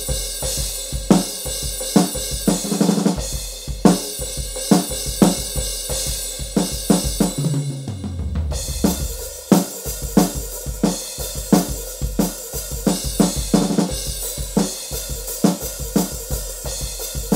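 Donner Backbeat electronic drum kit played as a steady beat of kick, snare and cymbals. About eight seconds in, a fill runs down the toms, stepping lower in pitch, and then the beat picks up again.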